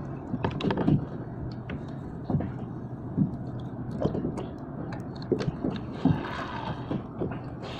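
Water slapping against a fishing kayak's hull, with wind on the microphone and a dozen or so scattered knocks and clicks as a rod and reel are handled.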